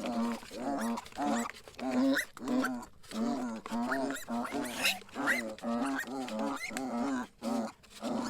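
Pigs grunting in a steady run of short grunts, about two or three a second.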